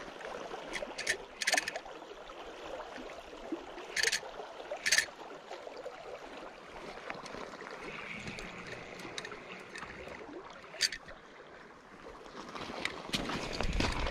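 Steady rush of river current, broken by several short, sharp ratcheting buzzes from the fishing reel as a hooked steelhead pulls line: three about a second in, two around four to five seconds, and one near eleven seconds. Louder rumbling handling noise builds near the end as the reel is wound.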